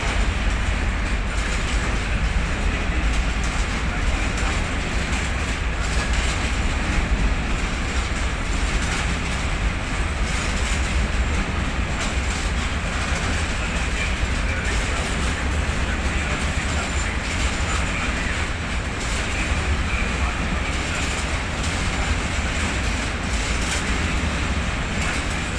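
Container flat wagons of a freight train rolling past: a steady rumble of steel wheels on the rails, with an occasional click.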